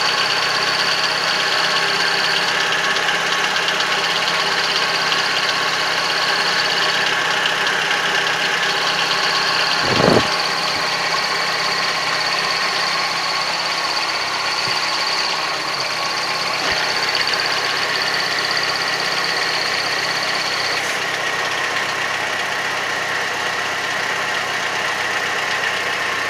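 ZMZ engine idling with a steady high-pitched whistle from the clutch. The whistle drops out briefly twice and stops near the end. It comes from the clutch release fork rubbing on the slave cylinder pushrod, not from the release bearing, and it goes away once that contact point is lubricated. There is a brief low thump about a third of the way in.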